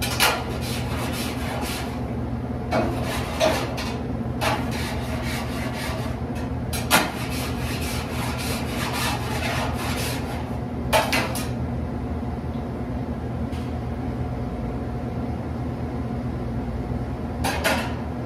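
Long-handled tool knocking and scraping against the steel vat of a deep fryer as it stirs up sediment from the bottom of the oil before draining. There is a sharp clank every few seconds, loudest about seven and eleven seconds in, over a steady machine hum.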